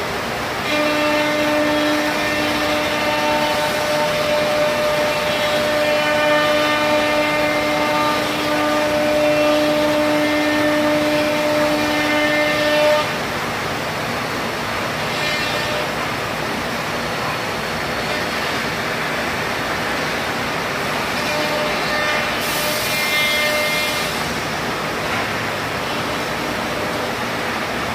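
Weeke Optimat BP-140 CNC router running: a steady whine of several stacked tones over a noisy machine hum, which cuts off abruptly about halfway through. After that an even mechanical noise carries on, with the whine briefly returning and a short hiss about four-fifths of the way in.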